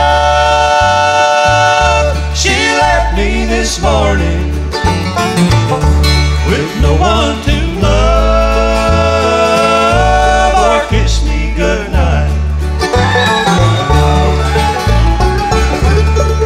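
Live bluegrass band playing an instrumental break: banjo, mandolin and acoustic guitars over a steady upright bass line.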